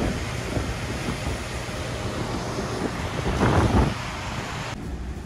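Wind buffeting the microphone over the rush of sea water in the ferry's wake, with a stronger gust about three and a half seconds in. Near the end it cuts off abruptly to quieter, duller sound.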